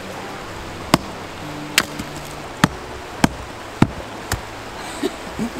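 Axe blade striking a log as firewood is split: about six sharp chopping strikes, roughly every half second to a second.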